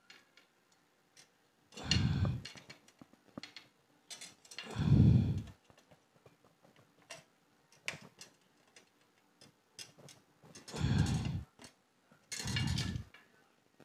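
Small sharp clicks and ticks of pliers twisting copper wire tight around an aluminium tube, broken by four loud, low breaths close to the microphone.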